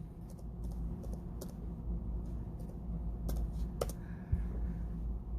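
Computer keyboard typing: a dozen or so scattered, irregular key clicks, as when entering a ping command.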